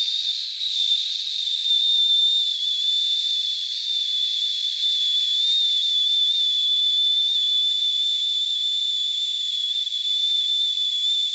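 A steady, high-pitched whistle over a hiss, its pitch wavering slightly, held without a break.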